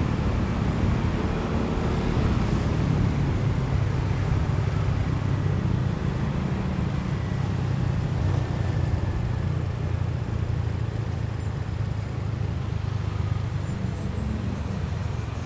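Motorcycle taxi running through city traffic, heard from the pillion: a steady low engine and road rumble.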